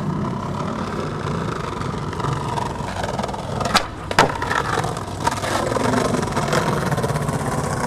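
Skateboard wheels rolling over rough concrete paving, with a clack as the board is set down at the start. Near the middle the tail pops sharply for a kickflip and the board lands about half a second later, then rolls on.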